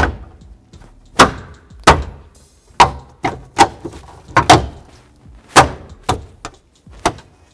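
Hand smacks on a plastic liftgate trim panel, snapping its retaining clips up into the tailgate: about nine sharp knocks, roughly one a second.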